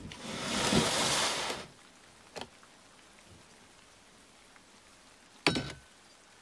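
A rushing hiss that builds over about a second and stops after a second and a half. It is followed by a faint click and, near the end, a sharp knock with a brief ring.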